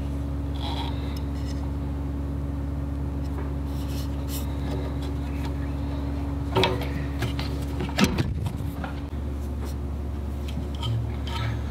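Steady low hum with hands working at the needle and bobbin area of a Techsew 2750 Pro cylinder-arm sewing machine. A sharp click comes a bit past halfway and a louder knock a little over a second later. One tone of the hum stops with the knock.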